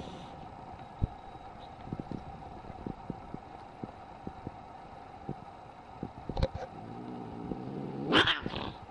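A cat scuffling and swatting: scattered light knocks over a steady background hum, then near the end a short, loud cat cry.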